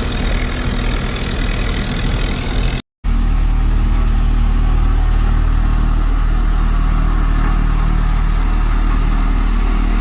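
Heavy road-construction machinery engine running steadily. Near three seconds in the sound cuts out for a moment, then an engine drone continues, deeper and steadier.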